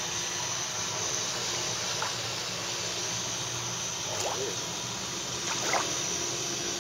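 Steady water noise on the lake, with a thin steady high whine over it and faint distant voices around four to six seconds in.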